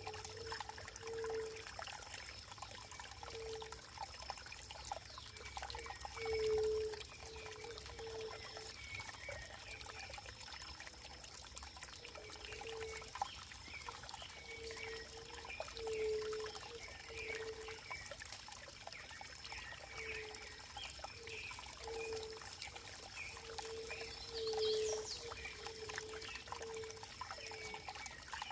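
Running water trickling and pouring, with a string of short low gurgling notes at irregular intervals and a faint steady high tone.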